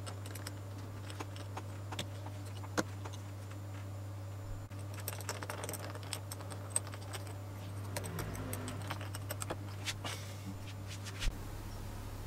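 Scattered light clicks and taps of a screwdriver and small metal parts as a model V8 engine's cylinder head is handled, over a steady low hum.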